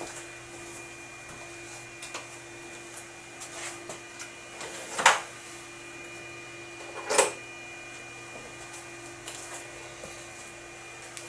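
Small metal tools handled over a steady hum: a few light clicks and two sharper knocks, about five and seven seconds in, as a micrometer and thread wires are set on a lathe-cut thread.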